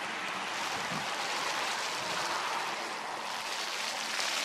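Steady rushing noise of heavy rain mixed with the distant engine noise of a KLM Embraer 195-E2 jet airliner moving along the runway.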